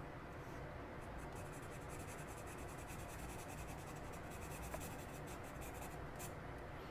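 Coloured pencil hatching on mixed-media paper: quick, even back-and-forth strokes, several a second, faint. It stops shortly before the end.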